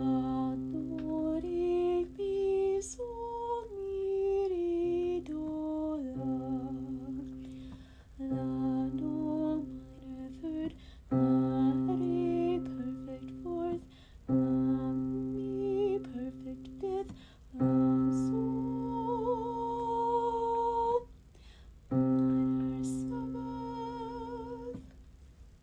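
A woman singing pentatonic solfège patterns, stepping up and down in pitch over a steady low keyboard drone note. The drone is held in about seven blocks of two to six seconds, with short breaks between, and some of the longer sung notes carry vibrato.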